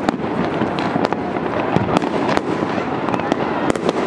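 Many fireworks going off at once: a continuous crackle and popping with frequent sharper bangs every fraction of a second.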